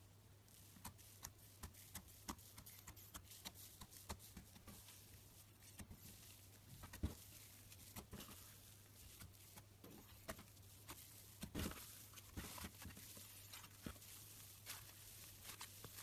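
Faint, irregular crackles and soft pops of fluffy, airy slime being pressed and pulled apart by hand, with a few sharper pops.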